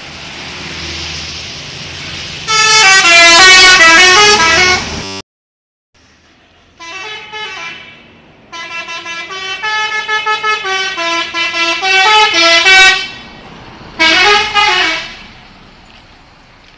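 Bus telolet horn, a multi-note musical air horn, playing short melodies of rising and falling notes in four loud bursts. The first burst cuts off abruptly into a second of dead silence.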